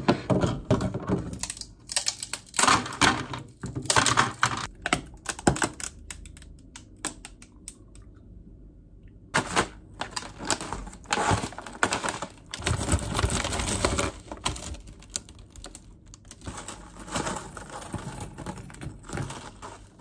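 Ice cubes clinking as they are dropped one at a time into a drinking cup. After a brief silent gap comes the rustle of a snack pouch and crunchy dalgona coffee candy pieces being dropped onto the drink.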